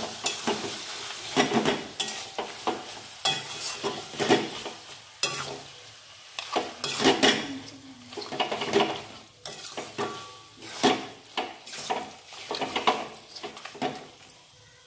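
A spatula stirring and scraping raw mutton pieces through fried masala in a metal kadai, in repeated irregular strokes, with the meat sizzling underneath: the mutton being mixed into the fried spice paste.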